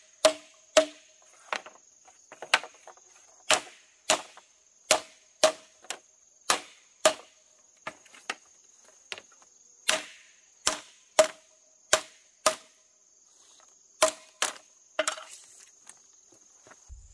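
Repeated sharp strikes of a hand tool on wood or a nail, one to two a second at an uneven pace, each with a short ringing note. Insects chirr steadily in the background.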